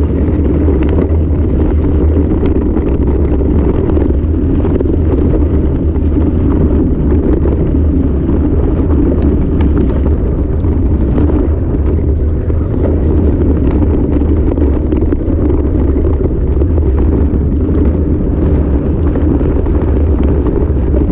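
Steady wind buffeting on a bike-mounted camera's microphone as a bikejoring mountain bike rides fast over dirt and grass trail, with tyre rumble underneath and a few small clicks and rattles.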